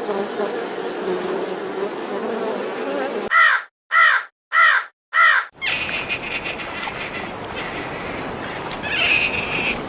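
A bird calling four times in quick succession, each call short and harsh, between stretches of outdoor background noise.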